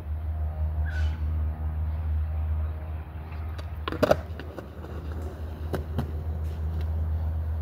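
Skateboard wheels rolling over pavement with a steady low rumble, a loud sharp clack of the board about four seconds in, then a few lighter knocks.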